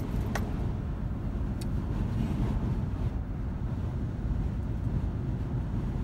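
Steady low rumble of road and engine noise heard inside the cabin of a moving car, with a short click about half a second in.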